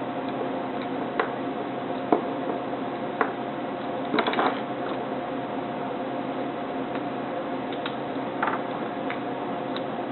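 Hands working black electrical tape around wire nuts: a few scattered sharp clicks and short crackly rasps, one cluster about four seconds in and another near the end, over a steady background hum.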